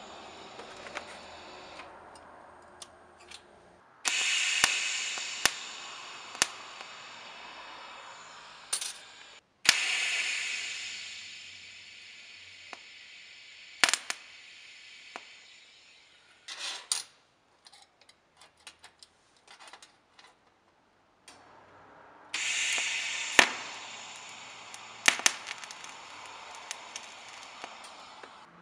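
TIG welding arc on steel spoons and butter knives: a loud hiss that starts abruptly three times and fades away over several seconds each time, with sharp clicks scattered in between.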